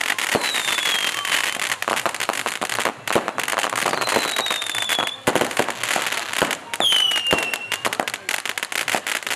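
Dense, continuous crackling and popping of wedding fireworks and firecrackers, with three whistling fireworks each giving a falling whistle, near the start, about four seconds in and about seven seconds in.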